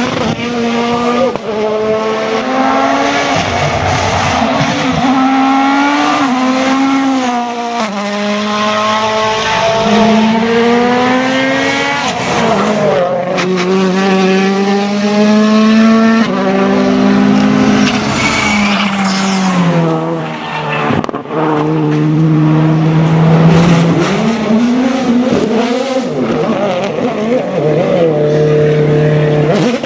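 World Rally Car 1.6-litre turbocharged four-cylinder engines revving hard at full attack. The engine pitch climbs and drops repeatedly, breaking off abruptly every few seconds at gear changes and lifts.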